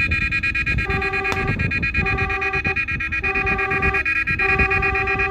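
Vehicle electronic siren: a rapidly pulsing high tone runs throughout, and a lower horn-like tone blasts on and off about every second and a bit, four times, over low engine and road rumble.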